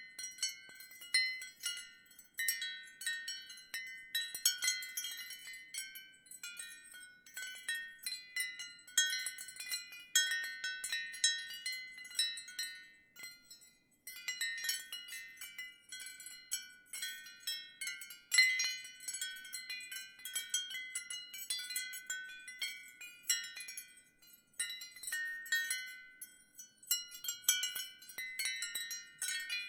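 Ceramic wind chime stirred by the wind, its pieces knocking together in irregular clusters of high ringing tones, with brief lulls about 13 and 24 seconds in.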